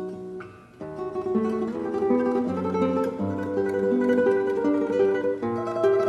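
Solo classical guitar playing a melodic passage. A phrase dies away into a brief pause a little under a second in, then the melody picks up again over a lower accompaniment.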